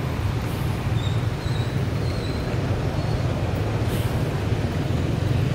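Steady low rumble of city street traffic on wet roads, with a few faint high squeaks between about one and three seconds in.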